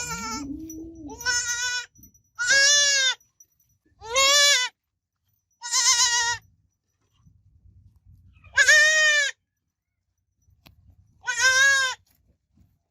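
Goat kid bleating: about six short, high, wavering bleats, each under a second long, separated by pauses of one to two seconds.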